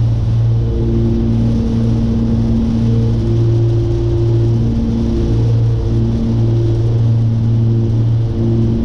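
Cessna 414's twin propellers and six-cylinder Continental engines in cruise, a steady drone heard in the cabin, its upper tones swelling and fading every second or two.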